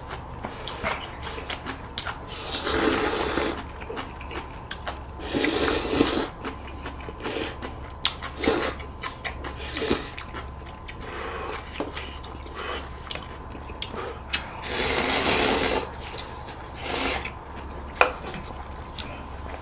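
Noodle slurping: two people eating budae-jjigae ramyeon in broth, with several loud slurps of about a second each and short sharp clicks between them.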